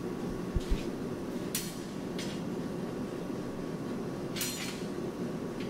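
Steady workshop hum with a few faint, sharp metallic clinks spaced a second or two apart and two soft low knocks near the start.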